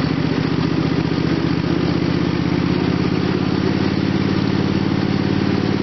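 Repowered lawn tractor engine idling steadily at an even speed.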